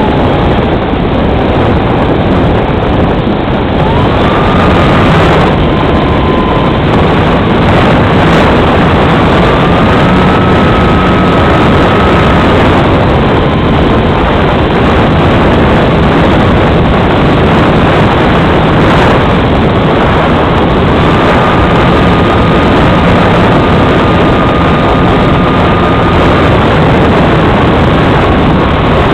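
Radio-controlled model plane in flight, heard from its own onboard camera: a loud, steady rush of wind over the airframe, with the motor and propeller whine stepping up and down in pitch several times as the throttle changes.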